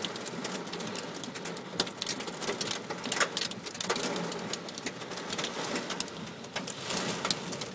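Heavy storm rain and hail pelting the car's roof and windshield, heard from inside the car: a dense, irregular patter of sharp hits, a few louder than the rest.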